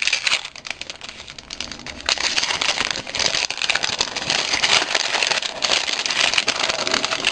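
Wrapping packaging crinkling and tearing as a small gift package is unwrapped by hand. The rustling becomes busier and fuller about two seconds in.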